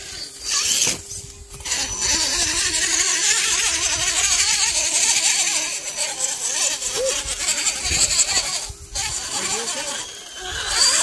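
Electric motor and gear drivetrain of a radio-controlled scale rock crawler running as it crawls over rocks, with a thin steady whine over a hissing noise that drops away briefly a few times.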